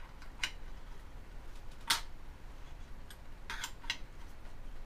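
Light metallic clicks and taps of a small wrench and hands on a 3D printer's aluminium bed carriage while a V-wheel's adjustment nut is being tightened. There are about six sharp clicks, the loudest about two seconds in and a quick cluster near the end.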